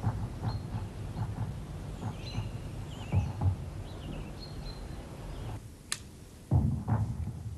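Birds chirping over a low outdoor rumble, with a few dull knocks. About six seconds in comes a sharp metallic click, then heavier thuds of a revolver's cylinder being handled and loaded with cartridges.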